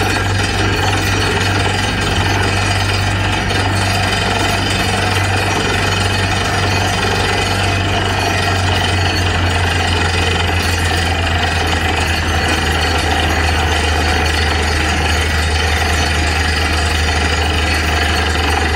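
DTH borewell drilling rig boring through rock with an 8-inch down-the-hole hammer bit: a rapid, continuous hammering rattle over the steady low drone of the rig's engine and air compressor.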